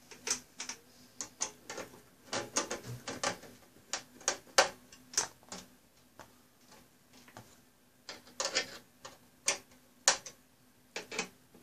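Screwdriver turning a screw into the back of an HP ProLiant Gen8 MicroServer's metal case to hold the lid on: irregular bursts of small metallic clicks and ticks, with a quieter stretch around six to eight seconds in.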